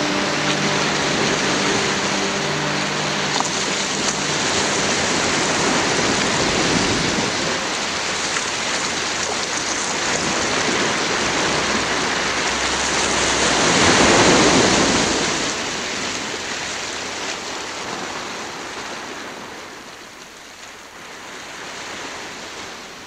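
Sea waves washing in a steady rush that swells to its loudest just past halfway, then gradually fades away. A few held low musical tones die out in the first few seconds.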